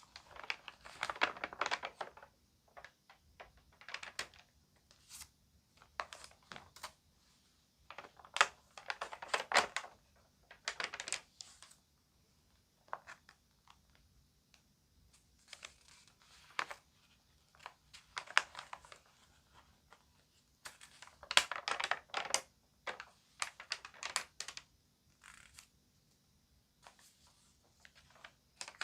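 Magazine pages being handled and turned, crinkling and crackling in short bursts every couple of seconds with quiet pauses between.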